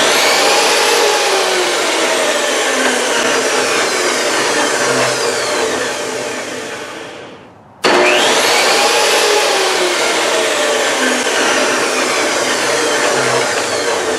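Craftsman 10-inch, 2.5 HP direct-drive table saw motor and blade started by its power switch, running briefly, then winding down with falling pitch. It is switched on again about eight seconds in and winds down again. The old switch, its contacts cleaned, turns the saw on and off as it should.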